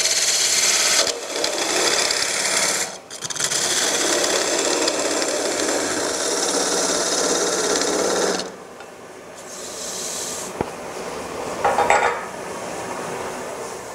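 Turning tool cutting away the end grain of a wooden canister spinning on a wood lathe: a loud, steady shaving hiss, broken twice by short pauses. About eight and a half seconds in the cut stops and the sound drops to a quieter level, with one brief scrape near the end.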